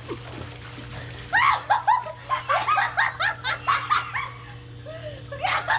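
A person laughing hard: a long run of quick, high-pitched laugh bursts starting about a second in, a short pause, then more laughter near the end. A steady low hum runs underneath.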